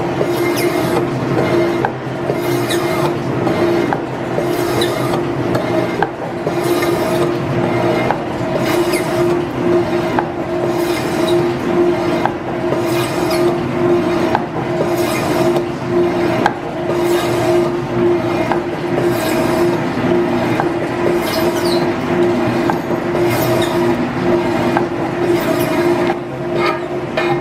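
Metal shaper cutting across the welded steel top of a frame base: a steady running hum with a scrape and clack at each stroke of the ram, about one stroke a second.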